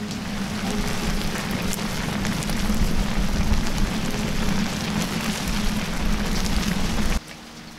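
Creamy pasta sauce bubbling and sizzling in a pan over an open wood fire, a steady hiss with scattered crackles. It cuts off suddenly near the end.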